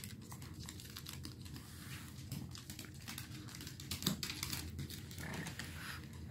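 Faint, irregular clicking and scuffling of a Shih Tzu puppy's and an adult dog's claws on a hardwood floor as they play.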